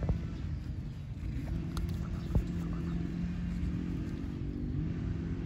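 Steady low hum and rumble of traffic, with two sharp clicks, the louder one about two and a half seconds in.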